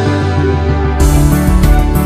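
Background music with held chords over a steady bass; a beat of crisp high percussion strikes comes back in about a second in.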